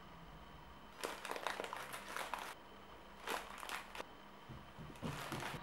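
Plastic biscuit packaging crinkling in three short, faint bouts as ladyfinger biscuits are handled.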